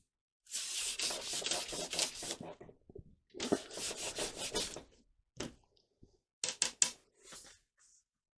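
Sandpaper rubbing against a workpiece to take off excess dried glue, in two long scrubbing passes followed by a few short strokes near the end.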